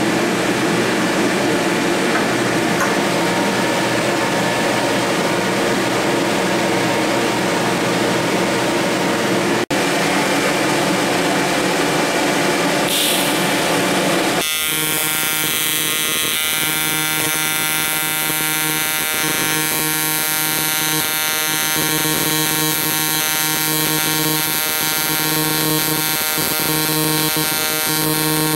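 AC TIG welding arc on aluminium, buzzing steadily with a lower hum that swells and drops every second or two. It is preceded by an even hiss that cuts off sharply about halfway.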